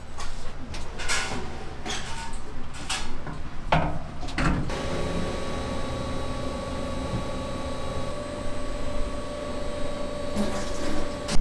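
Electric noodle dough sheeting machine at work. For the first few seconds there are knocks and clatter as the dough rolls are handled on it. Then, about five seconds in, a steady motor hum with a high whine sets in.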